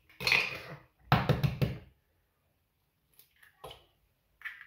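An egg knocked against the rim of a stainless steel mixing bowl: a sharp crack just after the start, then several quick knocks about a second in, followed by faint small sounds as the shell is pulled open.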